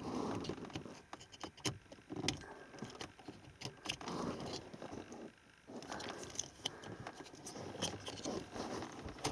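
Plastic radio wiring-harness connectors and loose cables being handled and pushed together: scattered small clicks, taps and rustling at irregular spacing.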